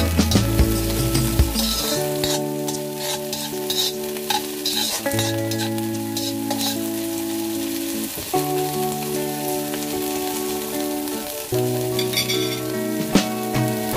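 Yellow chives sizzling as they are stir-fried in a stainless steel wok, with a spatula scraping and clinking against the pan now and then. Background music with slow held chords plays under it.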